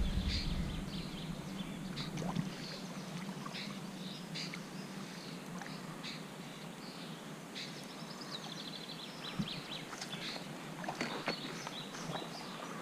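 Songbirds singing in the riverside trees: repeated short chirps, with a quick trill about eight seconds in, over a quiet outdoor background. A few light clicks and knocks come near the end.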